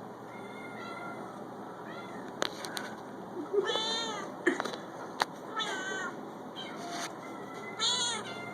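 Domestic cat meowing repeatedly: a few quieter meows, then three louder ones about a second or two apart, with a few sharp clicks in between.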